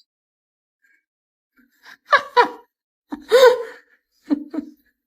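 Silence for about two seconds, then a person laughing in several short bursts, the longest in the middle.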